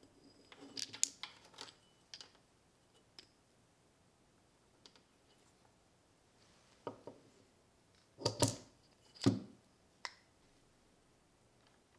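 Scattered faint clicks and taps of a brushless motor and a machined metal motor mount being handled and fitted together on a wooden bench, with two louder knocks about eight and nine seconds in.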